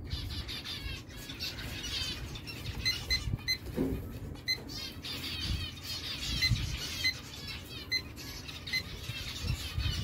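Small caged birds in a colony chirping and twittering continuously, in many quick high trills. Through the middle seconds there are also a dozen or so short, high pips.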